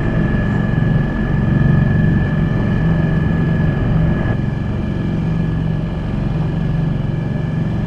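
Small dinghy outboard motor running steadily under way, a constant engine hum with a thin, steady high whine above it.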